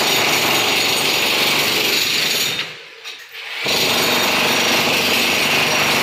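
Steady loud machine noise that cuts out for about a second midway, then resumes unchanged.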